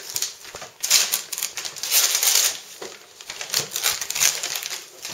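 Gift wrapping paper being torn and crumpled by hand, in several quick rips.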